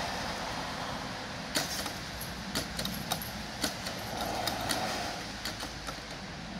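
Level-crossing barrier booms with hanging metal mesh grilles coming down and settling, giving a string of irregular metallic clinks and rattles from about a second and a half in, over a steady background hiss.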